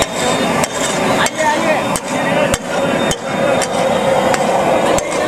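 Flat metal spatula striking a large iron griddle (tawa) as pav bhaji is chopped and mashed: sharp, irregular clanks about one or two a second over steady street noise.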